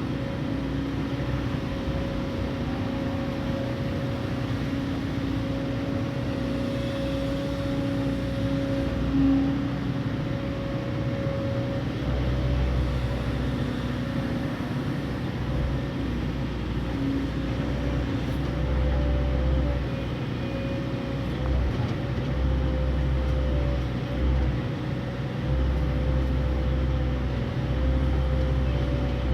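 Excavator's diesel engine running steadily with a constant hum over it, its low rumble growing heavier in repeated spells through the second half as the machine works.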